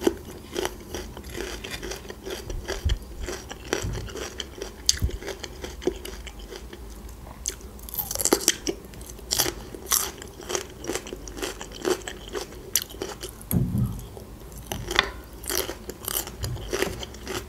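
Chewing and crunching of raw green bell pepper: a run of short crisp crunches, with a fresh bite into a pepper ring about eight seconds in.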